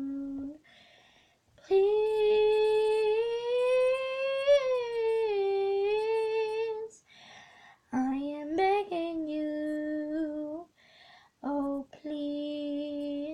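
A girl singing unaccompanied in long held notes with no clear words. The first note, about two seconds in, rises slowly and falls back. Shorter notes follow, with brief pauses between them.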